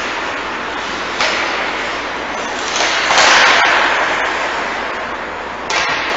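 Ice hockey game on the rink: a steady hiss of skates on ice, with louder scraping surges about a second in, around three seconds in, and near the end.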